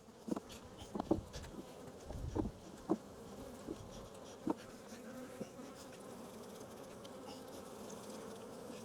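Honey bees buzzing steadily around an open hive. A few light taps and knocks from handling the comb and frame fall mostly in the first half.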